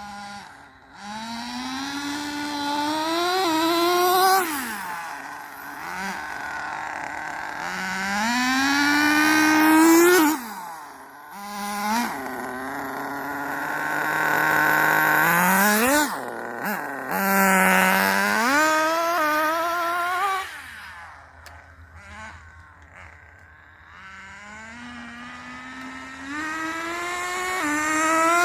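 Electric RC car with a JATO two-speed transmission, its motor and gears whining as it accelerates and slows in several runs: the whine climbs in pitch, then falls away each time it lets off, with one longer steady high stretch about halfway through.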